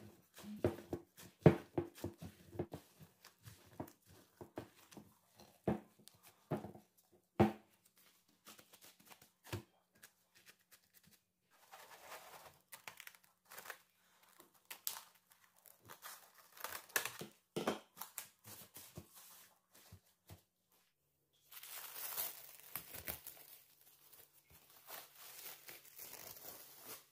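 Soft dough kneaded by gloved hands in a glass bowl, a run of sharp wet slaps and squelches. Then plastic cling film is pulled out and stretched over the bowl, crinkling and tearing. Near the end the film is peeled off the risen dough with a loud crinkling rustle.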